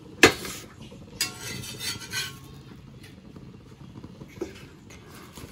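Metal cookware and utensils clattering: a sharp clank about a quarter of a second in, then a second or so of clinking with a short ring, and a light knock near the end.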